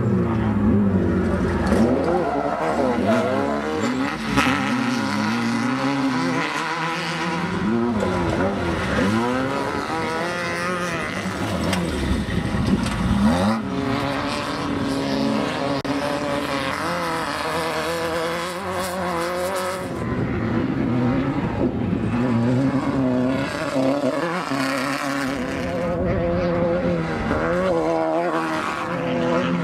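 Off-road race buggy engines revving up and down as the buggies run past, the pitch rising and falling again and again.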